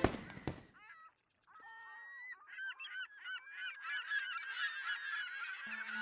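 A flock of gulls calling, many short arching cries overlapping and growing denser and louder. The last of a musical intro dies away at the start, and low steady music tones come in near the end.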